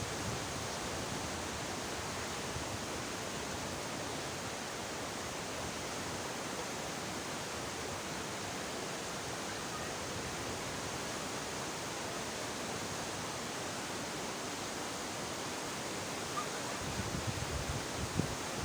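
River whitewater rushing steadily, an even, unbroken noise. Near the end, low buffeting of wind on the microphone joins in.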